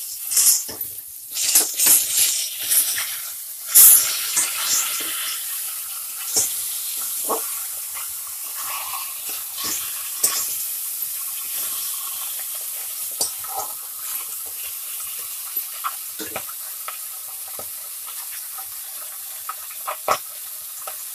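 Catla fish heads frying in hot mustard oil in a kadai: a steady sizzle, with clacks and scrapes of a metal spatula turning them. The clacks are busiest in the first few seconds.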